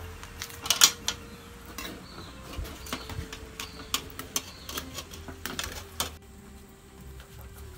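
Metal spoon clinking and scraping against a metal cooking pot and its perforated insert while boiled pumpkin slices are lifted out, a string of irregular clinks with the loudest clatter about a second in.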